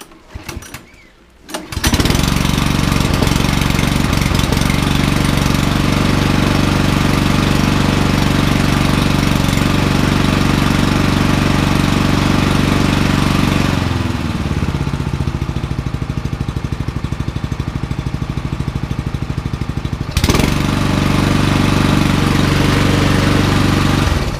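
Mountfield SP454 petrol lawnmower engine pull-started, catching about two seconds in and running at full speed. Just past halfway it drops to a steady idle, is brought back up to full speed about six seconds later, and cuts off near the end. It runs smoothly at full power and at idle: its carburettor has just been cleaned out, and the owner has a feeling the main jet was the fault.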